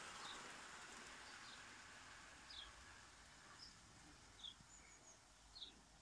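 Near silence in a garden, with a small bird giving short high chirps about once a second, six in all.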